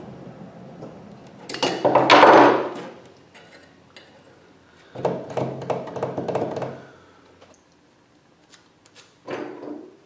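Metal parts handled on a wooden workbench: a small model steam boiler with a screw clamp on its dome knocking and scraping against the bench and its holding block. Three bursts of clatter, the loudest about two seconds in, a longer one around the middle and a short one near the end.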